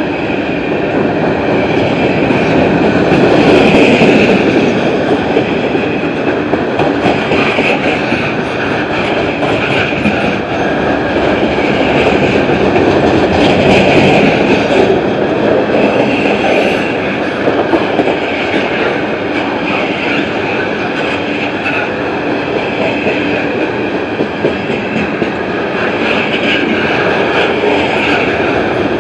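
Freight cars of a mixed Norfolk Southern train rolling past: a steady rumble and clatter of steel wheels on the rails, with a high metallic ringing that swells and fades every few seconds.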